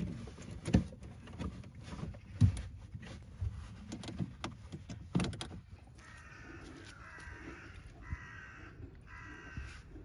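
Metal clicks and knocks as car battery terminal clamps are fitted and tightened with a spanner. About six seconds in, three drawn-out, rough animal calls follow, the first the longest.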